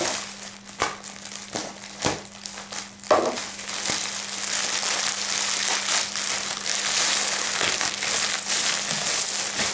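Plastic mailer bag and inner plastic wrapping crinkling as hands grip, pull and open it. A few sharp taps in the first few seconds, then continuous crinkling from about four seconds in.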